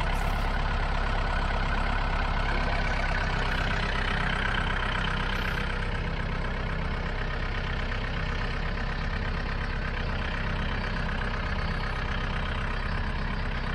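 Compact tractor's engine running steadily at a constant speed while the front loader holds and raises its water-filled bucket.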